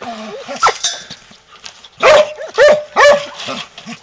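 A dog barking: a short yelp under a second in, then three loud barks about half a second apart in the second half.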